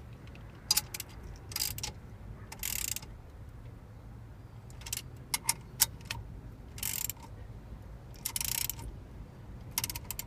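Hands working small parts of a steering-wheel horn button assembly: scattered light clicks and taps and short rustles, about one every second, over a steady low hum.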